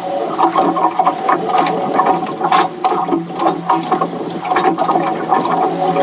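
Water lapping and slapping against a small boat's hull in irregular splashes, over a steady mechanical hum.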